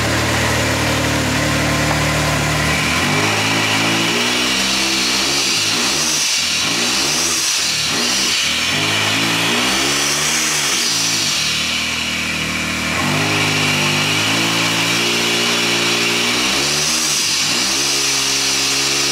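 Can-Am Maverick X3's turbocharged three-cylinder engine idling, then revved again and again from about three seconds in, its pitch rising and falling, with a steadier stretch past the middle before more revs near the end. The engine has logged a coolant over-temperature fault and is being run to listen for internal noise.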